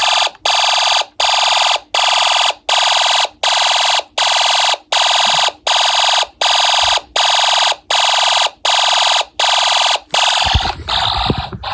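Snap Circuits fire alarm sounder going off after a pull station is pulled, beeping in an even pulse of about 1.4 beeps a second. It cuts off about ten seconds in, followed by a few clicks and knocks.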